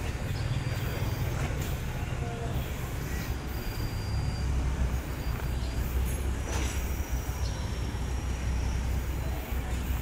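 Mitsubishi Lancer engine idling: a steady low rumble that grows stronger about four seconds in.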